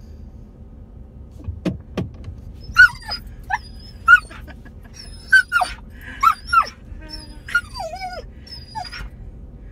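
Border collie mix whining and yelping excitedly: a string of about ten short high-pitched cries, one a longer falling whine near the end, over the car's steady low rumble. There are two knocks about two seconds in.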